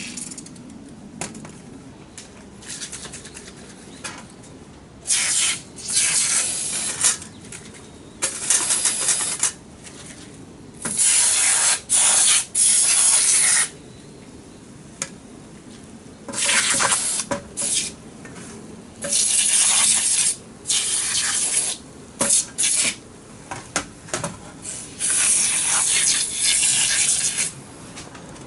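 Aerosol carburetor cleaner sprayed in a series of hissing bursts, each one to three seconds long with short pauses between, as the disassembled carburetor's parts are cleaned out.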